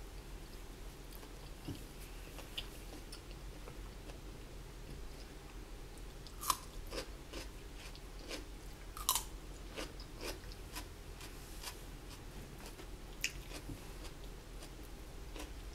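A person eating fried chicken wings: chewing with scattered crisp crunches, the sharpest about six and a half and nine seconds in.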